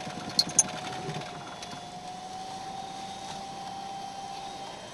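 A stalled car's engine being restarted and running unevenly, heard from inside the cabin, with two sharp clicks about half a second in. A steady whistling tone sounds underneath.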